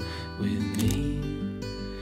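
Background music led by a plucked acoustic guitar, with a new chord struck just under a second in.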